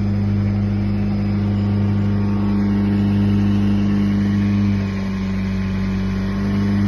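Ditch Witch FX60 vacuum excavator's engine running steadily with a low hum, its level dipping briefly about five seconds in and rising again near the end.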